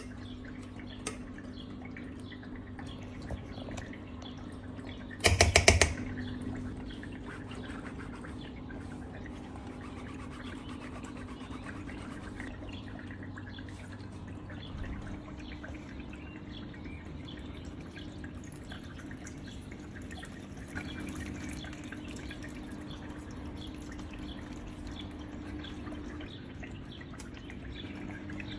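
Decorative tabletop water fountain trickling and dripping over the steady low hum of its pump. About five seconds in there is a brief, loud, rapid rattle: the glass baking dish being jiggled on the counter to level the mixture.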